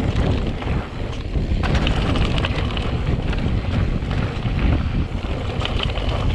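Wind rushing over the microphone as a mountain bike rolls fast down a dirt trail. The tyres rumble on the ground and the bike rattles and clatters over roots and bumps.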